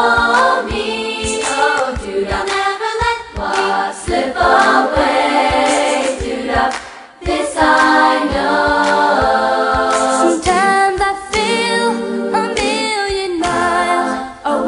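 Background music: a choir singing a hymn-like song without accompaniment, with a brief pause about seven seconds in.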